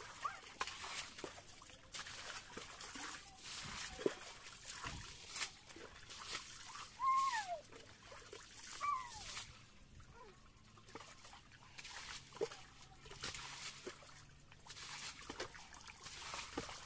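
Muddy ditch water being bailed with a plastic bucket: repeated scoops, sloshing and splashes as the water is thrown out. Two short high whines, bending in pitch, come about midway.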